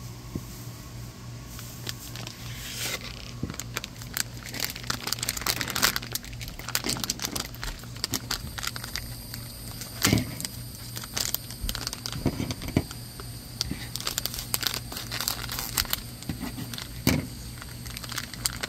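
Foil blind-bag wrapper crinkling and crackling as it is handled and torn open, with many irregular sharp crackles.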